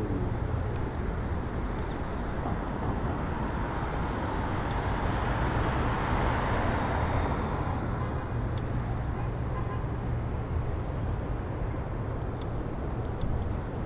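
City street traffic: a steady low rumble of passing cars, with one vehicle swelling louder as it goes by about six seconds in.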